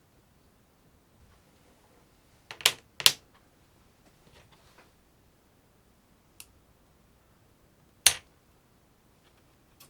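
Sharp mechanical clicks and snaps: two loud snaps in quick succession about three seconds in, a fainter click a few seconds later, another loud snap near eight seconds, and a faint click near the end.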